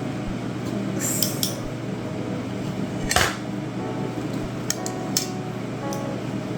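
Dishes and utensils clinking and knocking a few times, the loudest a little after three seconds in, over the steady hum of a kitchen range hood exhaust fan.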